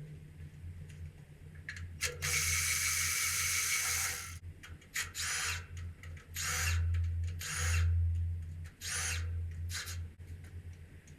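Power driver spinning bolts out of the timing covers on a Honda F18B engine: one run of about two seconds, then about five short bursts, each winding up and back down.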